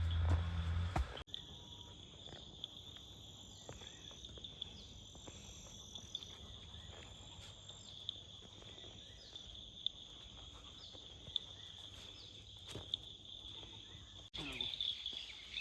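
Insects chirring steadily at a high pitch, with short falling high calls repeating about once a second. A loud low hum fills the first second and cuts off abruptly.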